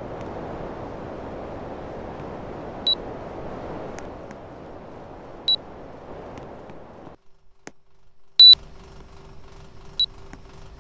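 Air conditioner blowing with a steady rush of air, broken by short high beeps from the unit. The rush stops about seven seconds in, and after a brief gap a quieter steady hum with a constant tone takes over, with two more beeps, the first of them the loudest.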